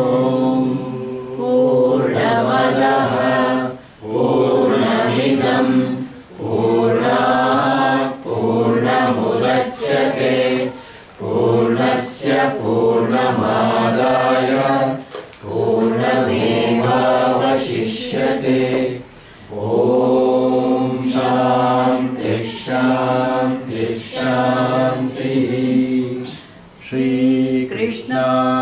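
Voices chanting a closing devotional prayer (mangalacharane) together, in held, sung phrases of a few seconds with brief pauses for breath between them.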